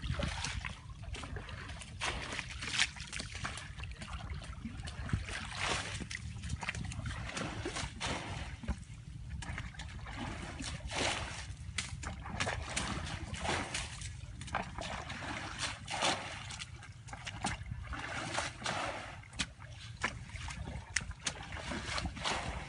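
Muddy water being bailed by hand from a shallow pool with a bucket and a sandal: irregular splashes and sloshes of water scooped and thrown out, over a steady low rumble.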